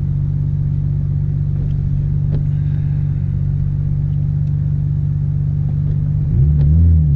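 Nissan Skyline R32 GT-R's RB26DETT twin-turbo straight-six idling steadily, heard from inside the cabin. About six seconds in the revs rise and fall, then climb again as the car pulls away.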